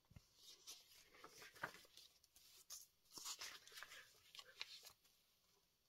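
Faint rustles and soft taps of the paper pages of a handmade journal being handled and turned over.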